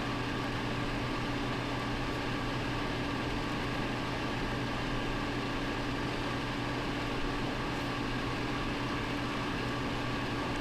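Clothes dryer running: a steady hum with a few constant tones over a noisy whirr.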